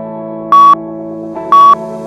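Two short, high electronic beeps a second apart, the loudest sounds here, over background music with held synthesizer chords: a workout interval timer counting down the last seconds of a rest period.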